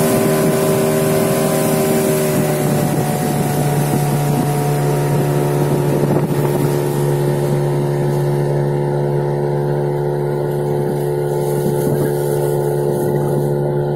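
Outboard motor of an inflatable boat running at high speed under way, a steady, unchanging hum, with wind noise on the microphone.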